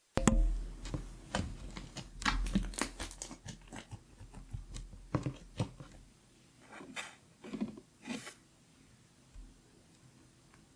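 Glitter slime being squeezed and pressed by hand, giving a quick run of crackling clicks and pops that thin out after about six seconds and stop about eight seconds in.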